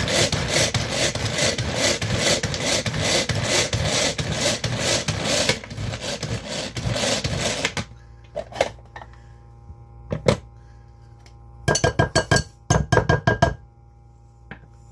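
Hand-operated food chopper whirring rapidly as it chops onion and garlic, stopping suddenly about eight seconds in. Then a few plastic knocks and a quick run of taps as the lid and blade are lifted off and knocked clean.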